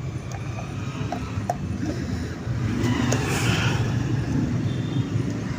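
Steady low vehicle rumble in the background, with a few light clicks of metal parts as the starter motor's armature is fitted into its brush holder.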